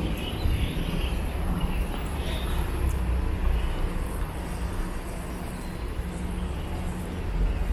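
Outdoor street ambience carried by a steady low engine rumble of nearby road traffic.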